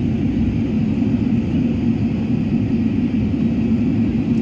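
Cabin noise of an Airbus airliner climbing after takeoff: the jet engines and airflow make a steady low rumble.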